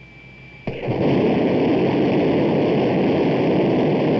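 X-15's XLR-99 liquid-fuelled rocket engine lighting up on a ground test run: a sudden start under a second in, then a steady, loud rush of rocket exhaust noise.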